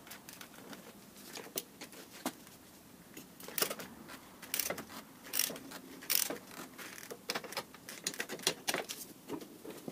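Ratchet wrench working a bolt on a motorcycle's fork and steering-head top in short strokes: sharp metallic clicks, sparse at first and coming much more often from about three and a half seconds in.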